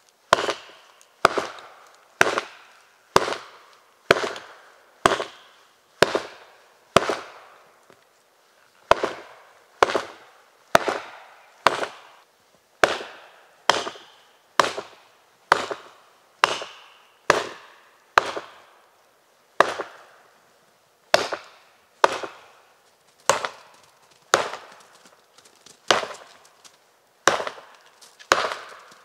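A Gränsfors Bruk Vildmarksyxa (Wildlife Hatchet) chopping into the trunk of a dead standing tree. Sharp strikes come about once a second, each ringing off briefly, with short pauses about a quarter and two-thirds of the way through.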